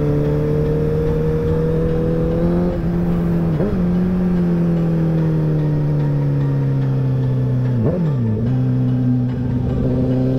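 Sportbike engine running under the rider, its pitch rising for the first few seconds, then falling slowly as the bike eases off through the curves. There are two quick changes in pitch, about four and eight seconds in.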